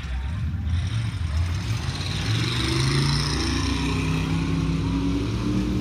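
Mud drag car's engine revving hard as it launches from the start line and accelerates down the mud pit. It grows louder about a second in and climbs in pitch, then holds high.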